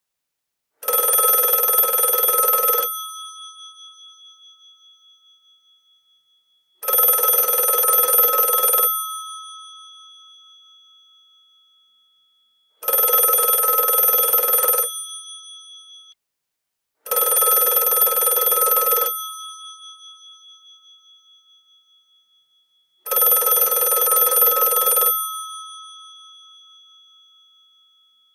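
Electromechanical bells of a GPO 746 rotary telephone ringing: five long rings of about two seconds each, several seconds apart. After each ring the gongs keep sounding as they die away. The rings are triggered by a BT line-test call.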